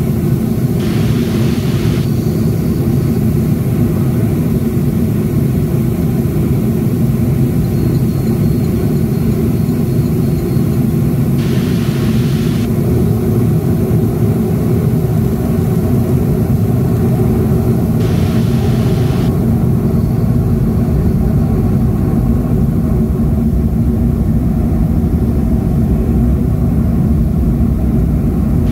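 Cabin noise of a taxiing Boeing 737-500: the CFM56-3 turbofans' steady low rumble and hum, heard through the fuselage. Three brief hisses of about a second each come through on top of it.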